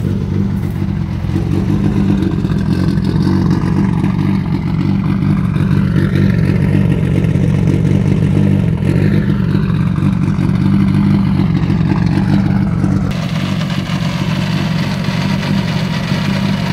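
Mitsubishi Lancer Evolution VI rally car's turbocharged 4G63 four-cylinder engine idling steadily, heard first at the single tailpipe and then from the front of the car, where the tone changes about thirteen seconds in.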